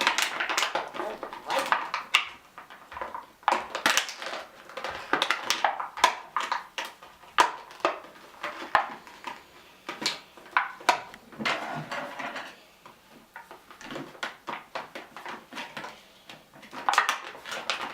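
Packaging being handled and opened to free a small toy figurine: irregular crinkling with many sharp clicks and snaps.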